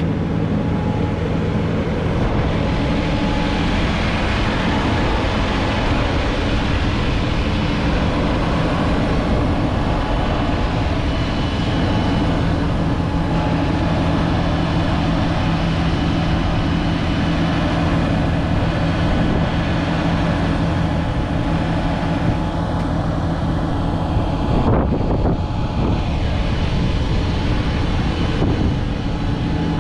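The 6.6-litre six-cylinder diesel engine of a JCB Fastrac 4220 tractor running steadily while the tractor stands still, with an even low hum. The hum thins out for a few seconds near the end.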